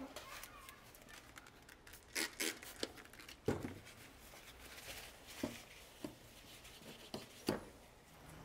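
Masking tape and a stencil being peeled off a steel hatchet head, then a paper towel wiping the steel: faint, irregular rustling and crinkling with a few sharp clicks and taps.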